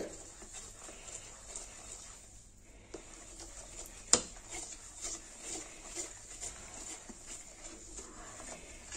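Spoon stirring foamy sugar syrup in a metal saucepan: faint, irregular scrapes and taps of the spoon against the pan, with one sharper tap about four seconds in.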